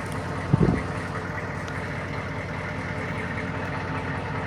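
Freshly rebuilt GM 6.5-litre V8 turbo-diesel idling steadily during break-in, with one short thump about half a second in.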